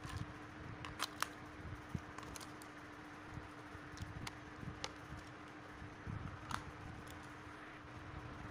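Light plastic clicks and handling noise from a toy RC car's plastic transmitter as its battery compartment is worked and a battery fitted: a handful of sharp clicks, two close together about a second in and others scattered later, over a faint steady hum.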